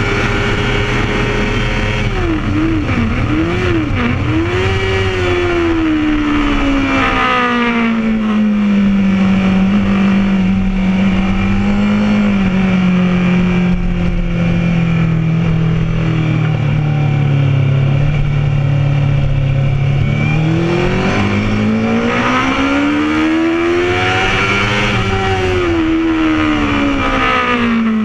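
Honda CBR1000RR inline-four sport-bike engine, heard from on board, at high revs with wind rush, then dropping in quick steps as the bike brakes hard and changes down. It settles to a low steady drone through a slow corner, rises as the throttle opens about twenty seconds in, and falls again near the end as it backs off.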